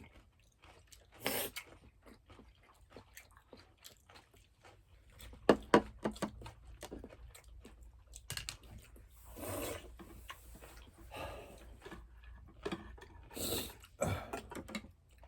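A person chewing and crunching food close to the microphone, with many short, irregular mouth clicks and crunches.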